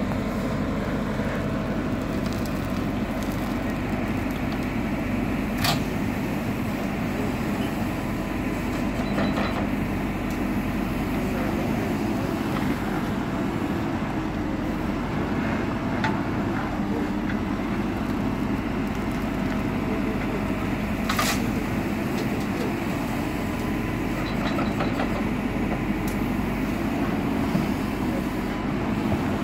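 JCB 4CX backhoe loader's diesel engine running steadily under working load. Two sharp knocks come about six seconds in and about twenty-one seconds in.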